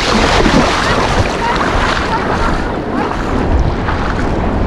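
Wind buffeting the microphone over the steady rush of inlet water and waves.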